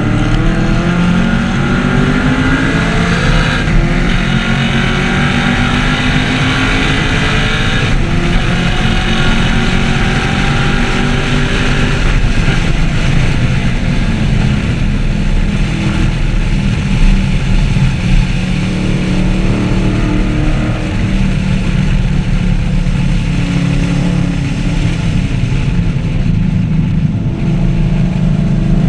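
2014 Chevrolet Camaro 1LE's V8 running hard on a race track, its pitch climbing as it accelerates, levelling off mid-way, then climbing again, over wind and tyre noise.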